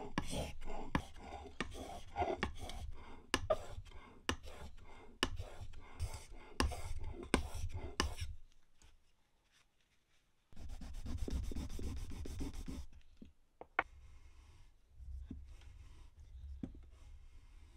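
Steel plane iron being rubbed back and forth on an abrasive to flatten and sharpen it. The scraping strokes come quickly and regularly, each with a click, for about eight seconds. After a brief pause there is a stretch of steadier rubbing with a single sharp click, then quieter rubbing.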